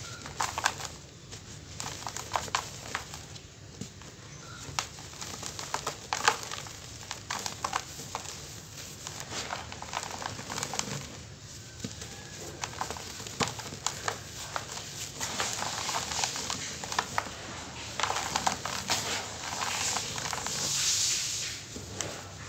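Dry cement chunks crushed and crumbled by hand: gritty crunching with many sharp crackles as pieces snap, and crumbs pattering onto loose powder. In the last few seconds the sound turns to a steadier gritty hiss.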